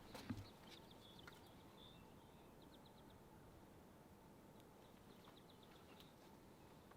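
Near silence with faint small-bird chirps: quick high trills about two and a half seconds in and again about five seconds in, with a soft knock just at the start.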